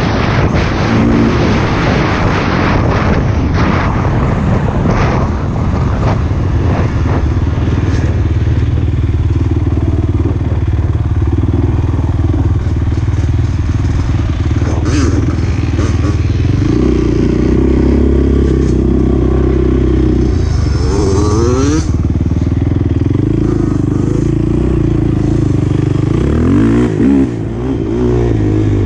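Honda TRX450R quad's single-cylinder four-stroke engine running hard under way, revs held steady for long stretches and rising and falling a few times in the second half.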